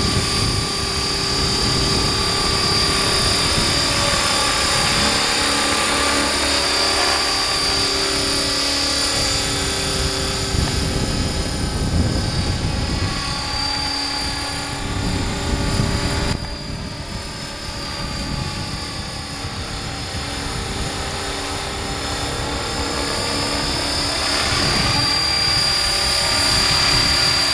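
Electric RC scale helicopter, Align T-Rex 500 Pro mechanics in an MD500E body, in flight: a steady high whine over the whir of the rotor blades. The sound drops suddenly about two thirds of the way through as the helicopter is far off, then grows louder again near the end as it comes back close.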